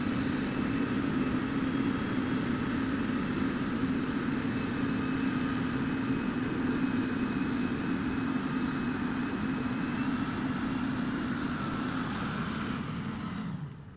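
Heavy diesel engine of road construction machinery running steadily: a low drone with a fainter higher whine over it. It falls away sharply just before the end.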